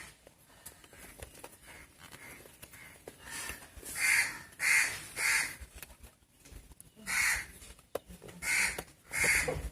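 A bird outside calling with short, repeated caw-like calls, about seven in all in two runs, the first about three seconds in and the second about seven seconds in.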